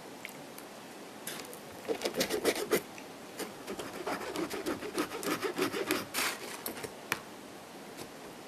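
A mouthful of pizza being chewed close to the microphone: crackly, crunchy chewing that starts about two seconds in and goes on for about four and a half seconds.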